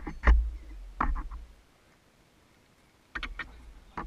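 Hands handling a hand-built model steam tug's hull and brass fittings: a few separate knocks and clicks with dull thumps, in two clusters about three seconds apart.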